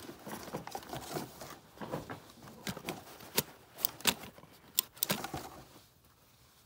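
Handling noise: rustling of a leather work glove and small irregular clicks as batteries are fiddled with in the hands.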